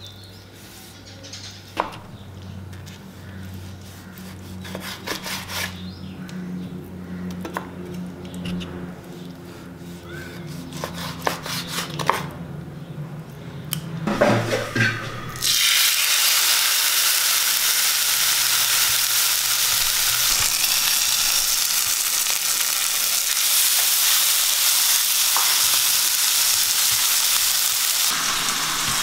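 A kitchen knife slicing raw pork belly on a wooden chopping board, with scattered sharp taps of the blade on the board over a low hum. About halfway through it changes suddenly to a chicken breast and a burger patty frying in oil in a pan, with a loud steady sizzle.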